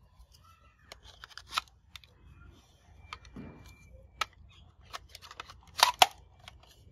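Plastic toy parts being handled and fitted together: scattered light clicks and taps, with a sharp double click about six seconds in.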